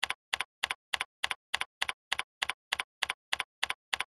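Computer keyboard keystrokes typing at a perfectly even pace, about three to four a second, each keystroke a quick double click.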